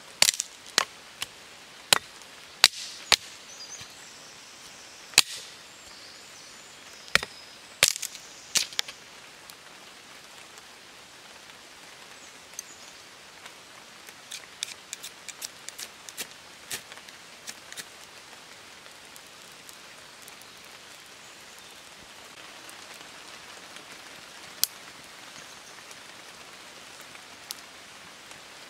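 Dry sticks snapped by hand for kindling: a series of sharp, loud cracks over the first nine seconds or so. Later comes a run of lighter quick clicks and scrapes, as a ferro rod is struck over moss tinder.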